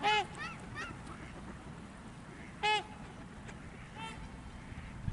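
Waterfowl calling at open water: a loud call right at the start, quieter calls from further off just after, another loud call about two and a half seconds in, and a fainter one near four seconds.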